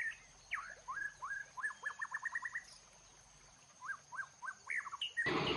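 A small bird chirping: a run of short rising chirps that speeds up to about eight a second, a pause of about a second, then a few more chirps near the end.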